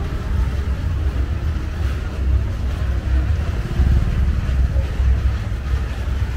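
Street traffic on a wet city road: motorbikes and tuk-tuks running, under a heavy, uneven low rumble.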